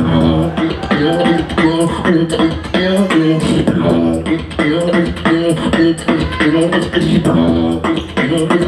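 Beatboxing into a microphone: a steady, loud rhythm of vocal kicks, snares and hi-hat clicks, with a pitched melodic voice line gliding over it.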